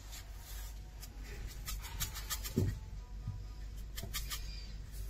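Light clicks and small rattles of a betta fish food container being handled as a few pellets are dropped out, bunched about two and four seconds in, with one soft thump in between.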